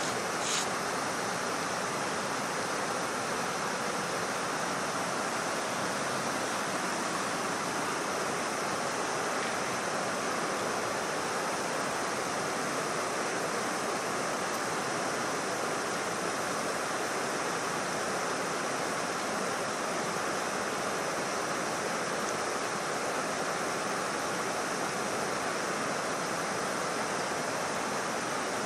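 Steady rushing of water, an even hiss that does not change, with a small click just after the start.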